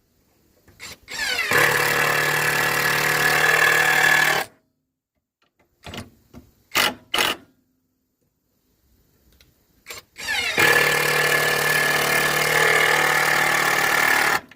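Prostormer power tool motor switched on twice. Each time it spins up with a rising whine, runs steadily for a few seconds, then cuts off suddenly. Between the two runs there are a few short on-off blips of the trigger.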